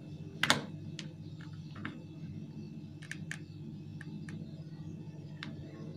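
Keypad buttons of a feature phone clicking as they are pressed, about eight short clicks with the loudest about half a second in, over a steady low hum.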